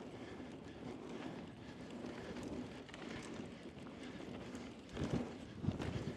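Mountain bike tyres rolling fast over a dusty dirt trail, a steady rough rumble with the bike rattling. About five seconds in come a few heavier low thumps.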